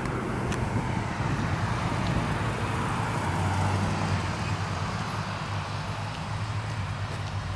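Steady low hum of road traffic, swelling slightly a few seconds in as a vehicle passes.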